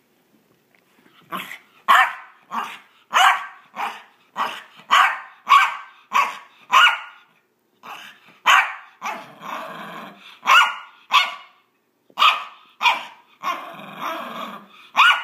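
Maltese dog barking in a quick run of short, high barks, one or two a second, with longer rough growls between them around the middle and near the end. These are the mock-vicious play noises of a small dog excited by a game of fetch.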